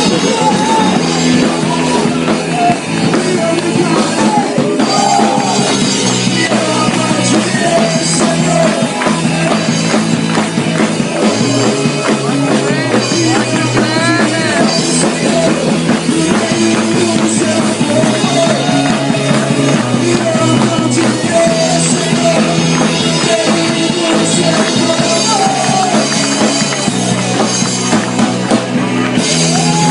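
Rock music with a drum kit, playing steadily and loudly.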